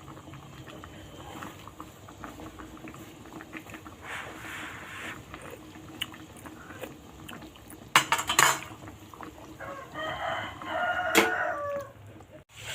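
Clinks and scrapes of kitchen utensils and dishes, with a sharp clatter about two-thirds of the way in. A rooster crows for about two seconds near the end.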